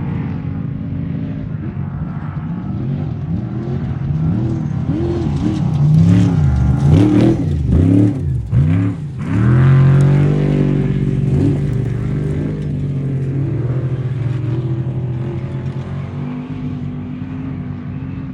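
Off-road race truck engine running with a steady note, then revved hard several times in quick succession, pitch rising and falling, between about five and ten seconds in. It then settles back to a steady note that slowly fades.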